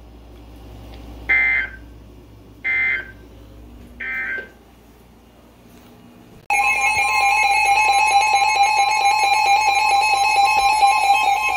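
Emergency Alert System data tones: three short raspy beeping bursts about a second apart, the end-of-message code that closes the severe thunderstorm warning. About six seconds in, the steady, harsh two-tone EAS attention signal starts and holds, announcing the next alert.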